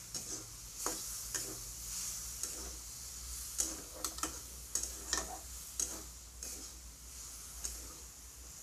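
Flat metal spatula scraping and clinking against a metal kadai, about every half second and unevenly, as potatoes and brinjal are stirred while the masala is fried with them. A steady sizzle of the frying runs underneath.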